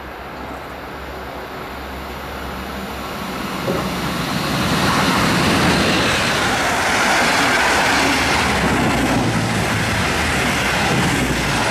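An electric locomotive hauling red double-deck regional coaches passes through at speed. The rail noise grows louder over the first four seconds or so as the train approaches, then holds as a steady loud rush of wheels on track while the locomotive and coaches go by.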